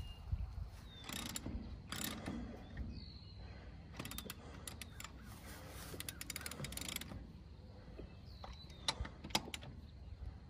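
Faint, intermittent metallic clicking of lug nuts being run down and tightened onto the studs of a tractor's front wheel hub.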